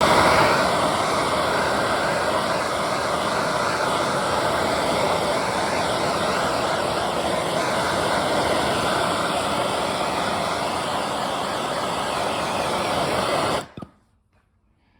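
Handheld gas torch burning with a steady, loud rushing flame while heat-shrink tubing on a crimped battery cable end is shrunk. It cuts off abruptly near the end.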